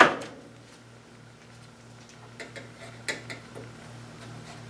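Small circuit board and ribbon cables being handled against a TV's sheet-metal back chassis: one sharp click at the start, then a few faint scattered ticks and taps, over a faint steady low hum.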